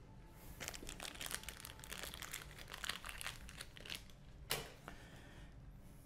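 Orange plastic wire nut being twisted by hand onto a splice of copper wires: a faint, rapid crinkling and clicking as the nut scrapes over the wires, with one sharp click about four and a half seconds in.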